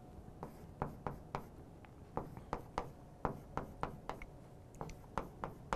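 Chalk writing on a chalkboard: a quick string of short, sharp taps as characters and plus and minus signs are written.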